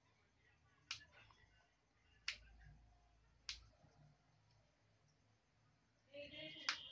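Fresh green chilli stems snapped off by hand, four short crisp snaps spaced out, the last near the end.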